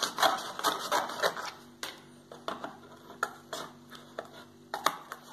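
Scissors snipping through thin cereal-box cardboard: a quick run of snips in the first second or so, then slower single snips.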